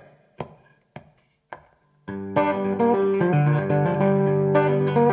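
Intro music on guitar: a few single notes struck one at a time and left to ring out, then a fuller guitar piece comes in about two seconds in.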